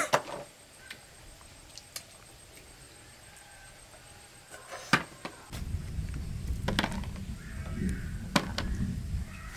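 Longan shells cracking as they are split open by hand: a few sharp snaps several seconds apart, the first the loudest. About halfway through, a low rumble sets in and lasts several seconds.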